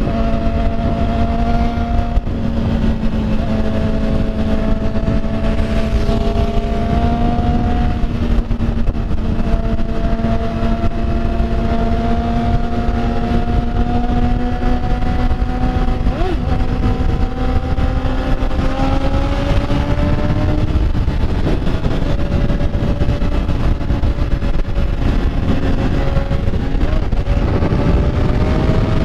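Motorcycle engine running under way at a steady pitch that slowly rises, drops about two-thirds through, then climbs again near the end, over a heavy low rumble.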